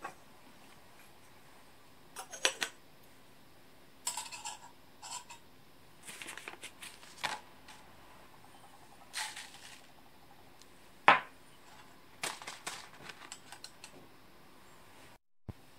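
Light metal clinks of a wire-frame coffee dripper being set on a titanium mug, mixed with the rustle of a paper filter being fitted. The clinks come irregularly, with one sharper clink about eleven seconds in.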